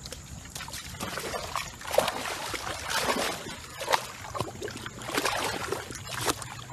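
A dog splashing and wallowing in a muddy puddle: irregular wet slops and squelches of mud and water.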